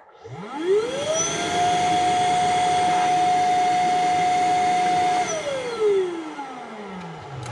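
OutdoorMaster Whale electric paddle-board pump with built-in battery, its motor and fan spinning up to speed over about a second. It runs at a steady whine for about four seconds, then is switched off and winds down over about two seconds.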